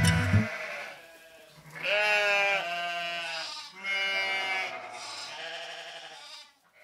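Sheep bleating: two long calls, about two seconds in and again about four seconds in, with a shorter one starting right at the end. Closing music stops about half a second in.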